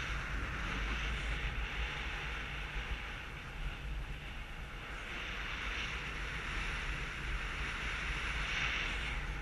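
Airflow rushing over a GoPro microphone in paragliding flight: a steady rumbling wind noise with a hiss that swells about halfway through and again near the end.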